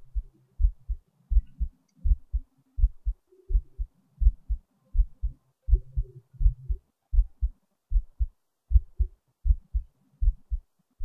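Heartbeat: low paired lub-dub thumps repeating steadily, about 80 beats a minute, with a faint hum between the beats.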